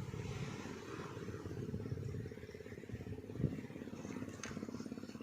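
An engine running steadily at a low pitch.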